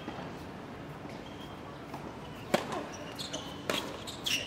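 Tennis ball struck with a racket: a sharp serve hit about two and a half seconds in, the loudest sound, followed by two more sharp hits of the rally over the next two seconds.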